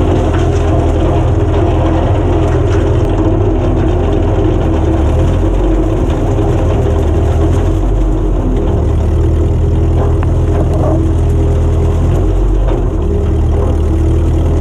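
Ford 8N tractor's four-cylinder gasoline engine running steadily as it drives through brush pulling a rotary cutter (brush hog), its note shifting slightly a few times with the load.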